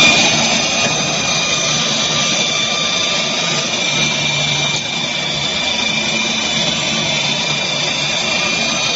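Electric seaming machine running along the seam of arched steel roof panels, its motor and rollers seaming the panels together with a steady high whine.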